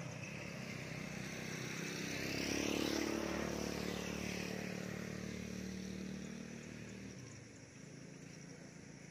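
A motor vehicle passing on the road: its engine grows louder to a peak about three seconds in, then fades and drops away about seven seconds in.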